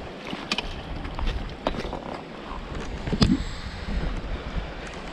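Wind buffeting the microphone on open water, with a few short sharp sounds as a hooked fish is brought in, the loudest about three seconds in.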